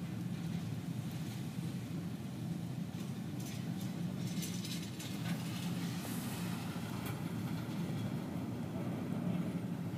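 Intermodal container train rolling past, a steady low rumble of wheels on rail, with brief higher clatter and squeaks near the middle. Heavy rain hisses over it.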